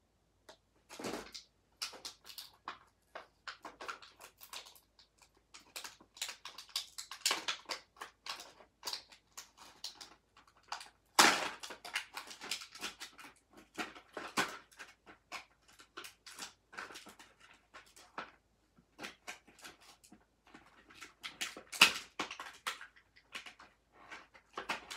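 Small plastic toy pieces clicking and rustling as they are handled and fitted into a plastic toy camper's fridge. The clicks come irregularly throughout, with two sharper knocks, one about halfway through and one near the end.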